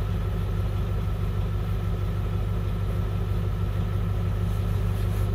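A 2004 International school bus's diesel engine idling steadily, heard from inside the bus: an even, unchanging low hum.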